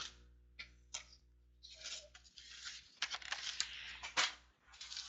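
Sealed foil trading-card packs being handled and set down on a table: intermittent crinkling of the wrappers with light taps and clicks.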